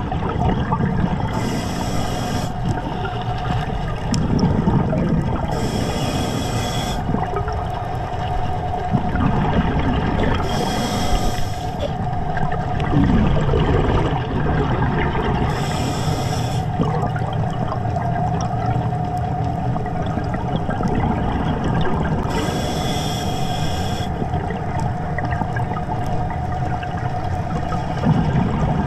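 Scuba diver breathing through a regulator underwater: five short hisses of air, one every four to seven seconds, with rumbling bubbles in between, over a steady mid-pitched whine.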